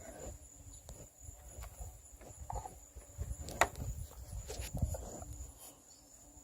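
Irregular low thuds and scuffs, with one sharp click about three and a half seconds in.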